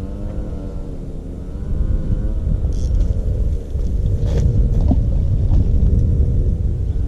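An engine running steadily with a low rumble, joined by a few short knocks about three and four and a half seconds in.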